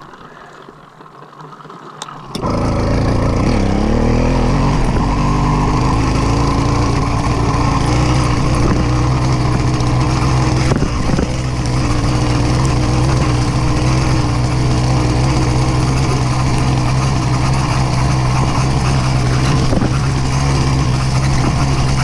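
Motorized bicycle kit engine starting about two seconds in, its pitch settling over the next couple of seconds, then running steadily at idle.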